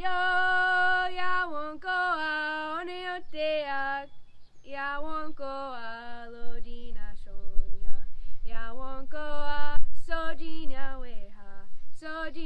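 A woman singing unaccompanied: phrases of held notes and gliding pitches, with short breaths between them.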